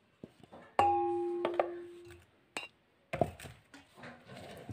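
A stainless steel mixer-grinder jar strikes a steel bowl once, with a ringing clang that fades over about a second and a half. A few lighter knocks and some scraping follow as the jar is handled.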